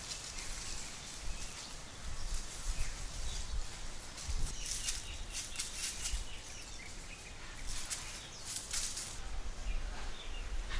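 Outdoor ambience: a low rumble of wind on the microphone, with short high hissing rustles in clusters about halfway through and again near the end.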